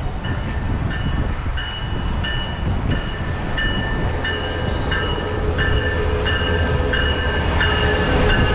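Amtrak Pacific Surfliner passenger train pulling into the station, its locomotive bell ringing steadily a little under twice a second. About halfway through, the rumble and hiss of the locomotive and wheels swell as it draws alongside.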